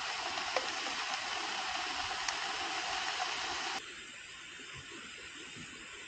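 Portable camping gas stove burner hissing steadily under a pot. About four seconds in the hiss drops suddenly to a softer, higher hiss.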